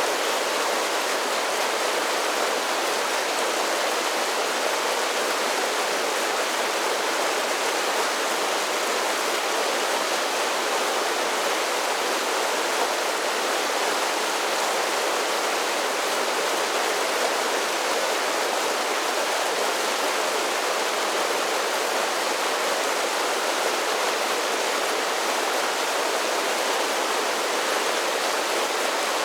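A mountain creek cascading over a series of small falls: a steady, even rush of water with no deep low end.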